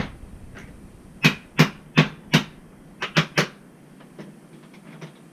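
Sharp knocks of hard parts or a tool striking: one at the start, four evenly spaced about a second in, then three quick ones a little later, while a loose-fitting part is worked on the air compressor's pressure switch.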